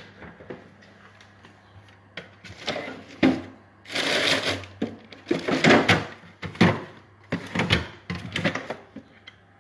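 A freezer drawer pulled open and frozen food in plastic bags and tubs rummaged through: rustling plastic and clattering knocks in repeated bursts, beginning about two seconds in.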